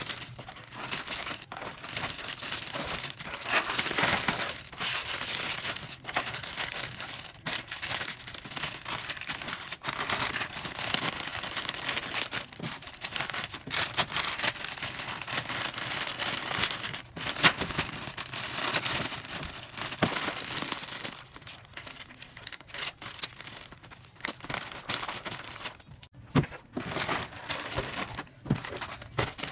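Clear plastic bag and candy wrappers crinkling and rustling as boxes and packets of candy are packed into the bag by hand, with scattered light taps and knocks.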